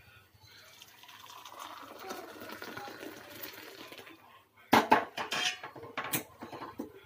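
Hot milky coffee pouring from a steel pan into a small steel cup, a soft steady splashing, followed a little under five seconds in by several sharp clinks of steel utensils knocking together.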